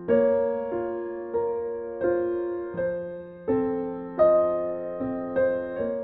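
Slow piano background music, a new note or chord struck about every two-thirds of a second, each ringing and fading away.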